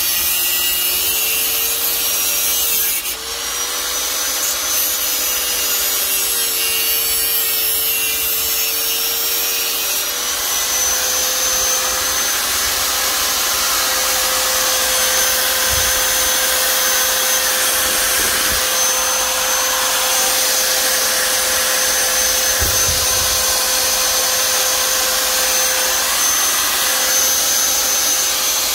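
Small high-speed electric power tool running steadily while cutting into the headlight assembly. Its motor note sags and wobbles briefly near the start, then holds steady and falls away as the tool winds down at the very end.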